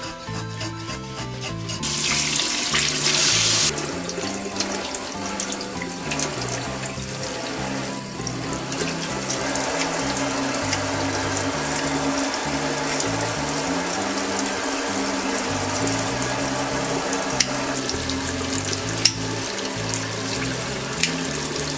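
Tap water running into a sink, gushing harder for about two seconds shortly after the start and then running steadily, over background music.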